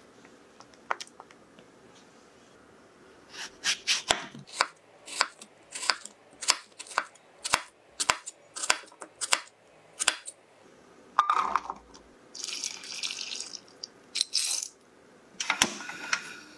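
Chef's knife dicing apple on a wooden cutting board: a run of crisp chops, about two a second, starting a few seconds in and stopping about ten seconds in. A few scattered clatters and a short hiss follow near the end.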